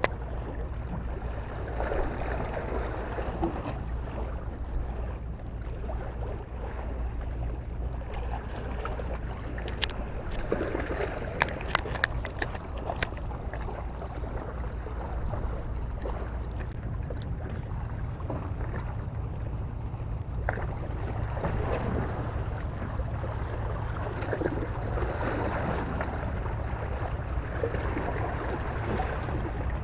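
Wind buffeting the microphone as a steady low rumble, over water lapping against jetty rocks. A handful of sharp clicks come in a cluster about a third of the way in, with one or two more later.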